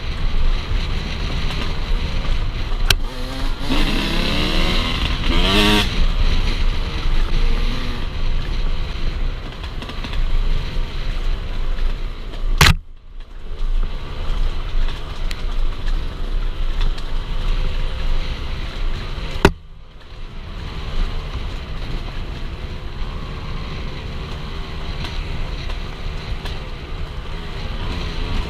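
Enduro motorcycle engine running under load off-road, its pitch rising and falling as the throttle is worked. Two sharp clicks cut through, a little before halfway and about two-thirds of the way in, each followed by a brief drop in level.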